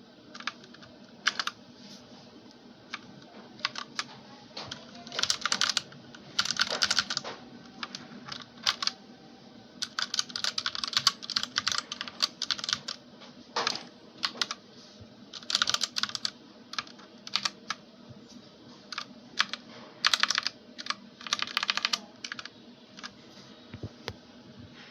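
Keys of a PC Power K87 mechanical keyboard with Red linear switches being pressed, in scattered single presses and quick bursts of keystrokes.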